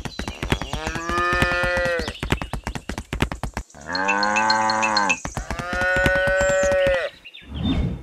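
Cattle mooing: three long moos, the first about a second in and the last ending about seven seconds in, over a quick, even clicking.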